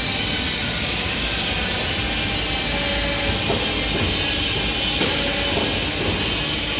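CNC tube bending machine running, a steady mechanical hiss and hum with faint whining tones.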